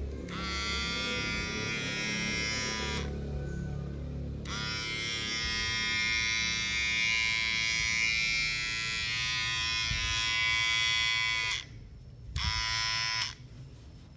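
Kemei 5021 electric hair clipper switched on and running with a steady buzz, three times: for about three seconds, then for about seven seconds, then for about a second near the end, cutting off sharply each time.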